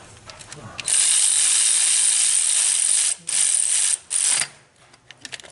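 Power ratchet running bolts into the transmission in three bursts: a long run of about two seconds, then two short ones.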